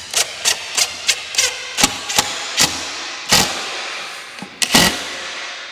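Cordless impact driver sinking a long screw into a wooden board: a steady rattle with sharp knocks standing out about three times a second, spacing out and stopping with a last loud knock near the end.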